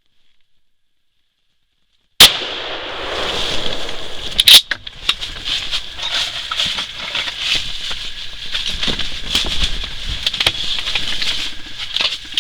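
Remington 870 Express pump-action shotgun firing: a sudden loud shot about two seconds in, then a second loud crack about two seconds later. After the shots comes a steady hiss full of small crackles.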